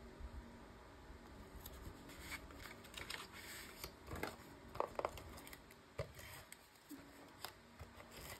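Faint handling of cardstock and patterned paper being stuck down with an adhesive tape runner: short scraping rasps of the runner and paper, with a few light clicks and taps, busiest a couple of seconds in.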